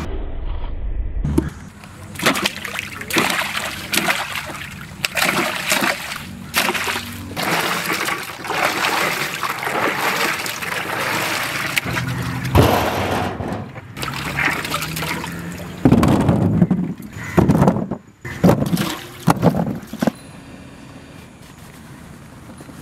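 Water splashing and sloshing in irregular strokes, which stop about 20 seconds in.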